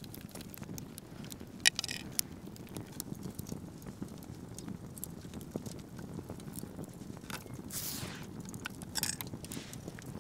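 Fingers picking cracked ostrich eggshell away from the inner membrane: scattered small crackles and clicks of shell, with one sharp snap about a second and a half in and a few brief rustles near the end.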